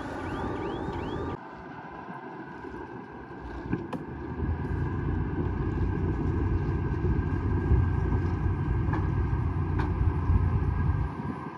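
Bulldozer's diesel engine running, growing louder and heavier from about four seconds in as it works. A repeating high squeak is heard in the first second, and the sound changes abruptly about a second in and again near the end.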